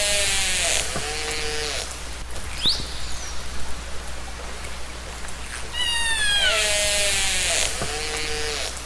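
Killer whale (orca) calls recorded underwater. Several falling calls slide down in pitch and run into a buzzy pulsed stretch, lower held calls follow, and a short rising whistle comes about three seconds in. Steady hiss lies behind the calls, and the same call sequence starts again about six seconds in.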